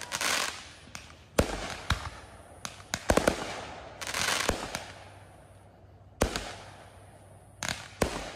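Consumer fireworks going off: irregular sharp bangs, a quick cluster of them about three seconds in, with hissing rushes that die away between the shots.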